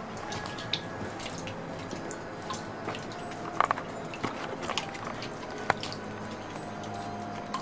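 Water seeping from the rock and dripping into a plastic basin of collected water: a handful of single drops plinking at irregular intervals.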